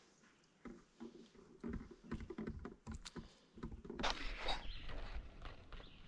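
Handling noise: soft knocks and small clicks, then a brief rustle about four seconds in.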